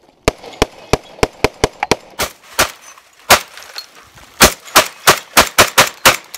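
Saiga-12 semi-automatic 12-gauge shotgun fired in rapid succession, well over a dozen shots in a string. The shots get louder about two seconds in and quicken to about five a second near the end.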